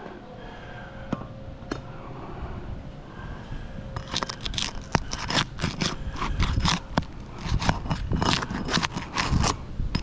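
Asphalt shingles being worked loose to break their seal. From about four seconds in comes a quick run of scraping, crackling strokes. The shingles are brittle and tear instead of lifting cleanly.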